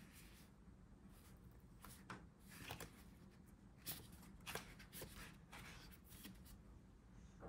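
Faint rustling and flicking of paper as the sheets of a sticker book are leafed through by hand, in a string of short, irregular flicks.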